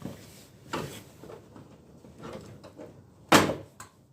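Plastic inner fairing panel of a Yamaha XJ900S being forced into place: a small knock about a second in, then a loud sharp snap a little after three seconds as it clips in, with a smaller click just after. It sounded quite forced.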